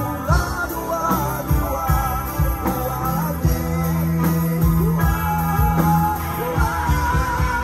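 Live rock band playing: a singer's voice over electric guitars, bass and drums, with a low note held for about three seconds near the middle.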